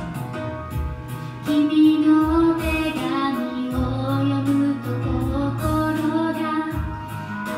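A woman singing a Japanese pop song into a microphone over a karaoke backing track with a steady beat; her voice comes in about a second and a half in.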